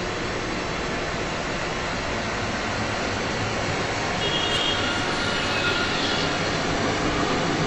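An SUV driving toward the camera on a dirt road shoulder, its engine and tyres over steady road-traffic noise, growing a little louder as it comes close.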